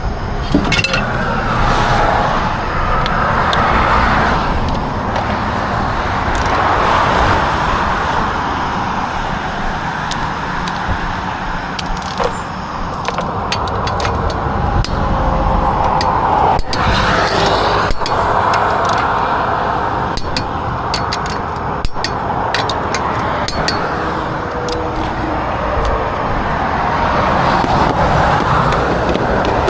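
Steady rush of passing road traffic that swells and fades every few seconds, with scattered sharp metallic clicks and clinks of hand tools in the middle.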